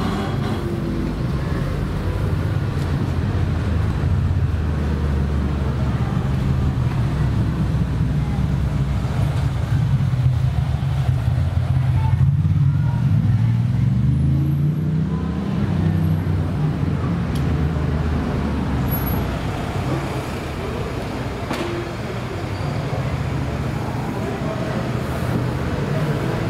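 Street traffic, with a vehicle engine running close by in a low, steady drone that bends up and down in pitch about halfway through.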